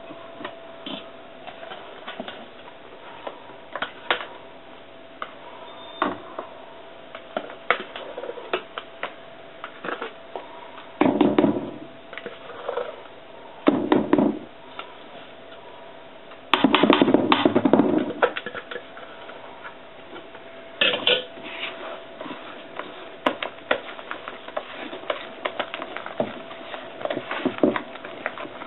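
Spatula scraping and tapping against stainless steel bowls as beaten egg whites are scooped into chocolate sponge batter and folded in, with irregular clicks throughout and a few longer, louder scraping passes in the middle.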